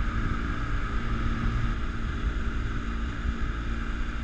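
Motorboat under way at speed: steady engine hum with water rushing and splashing along the hull, and wind buffeting the microphone.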